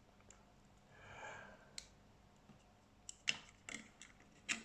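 A few faint, sharp clicks and light taps, as of small plastic parts being handled, coming more often toward the end.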